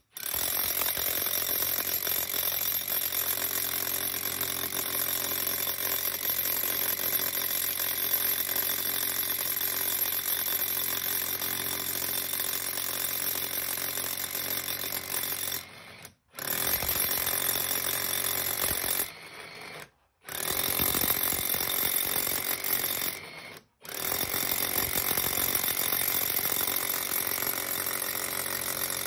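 Cordless rotary hammer drilling into brick with a masonry bit, running steadily in hammer mode. It stops briefly three times, about halfway through, around two-thirds of the way, and shortly after, then carries on.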